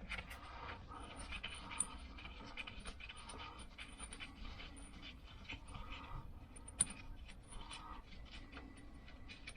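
Faint breathing puffs recurring about once a second, with light clicks and taps of small metal parts being handled.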